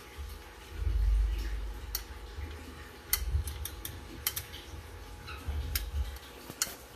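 Scattered light clicks and crackles of dry wood-shaving bedding shifting, with low rumbles of handling noise on the microphone, the loudest about a second in.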